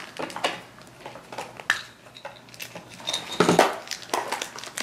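Light clicks and taps of small hard-plastic toy pieces being handled, a toy locket being opened and its contents taken out, with the rustle of a small foil wrapper.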